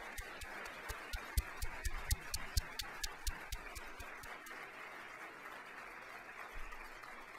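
Audience applauding, with a few sharp claps close by through the first half that stop about halfway through. The applause then carries on more softly and dies down gradually.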